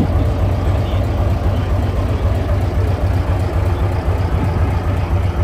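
Engine of a 1967 Scania Vabis LS 76 hot-rod truck idling steadily, a low, even pulse that holds constant with no revving.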